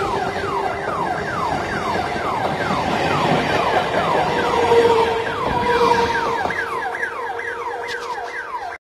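Electric multiple unit (EMU) suburban train pulling away from a station and passing close by. A steady electric whine steps up in pitch about halfway through, over a rapid string of short falling whines, about three a second. The sound cuts off suddenly near the end.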